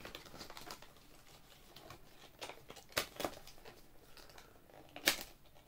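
A small cardboard earbud box being handled and opened: light paper and card rustling and scraping, with sharp clicks about three seconds in and again near the end.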